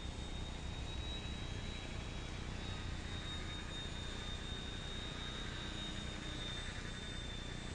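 High thin whine of a small electric RC airplane's motor and propeller flying overhead, holding a nearly steady pitch with slight wavering, over a low steady rumble.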